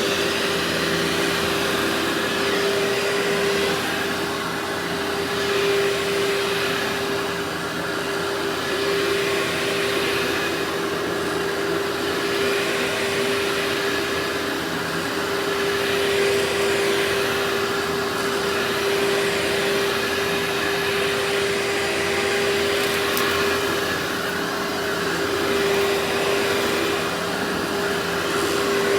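Workhorse vacuum cleaner running, with a steady motor hum under the rush of its airflow. The air noise swells and eases about every two seconds, as with back-and-forth strokes.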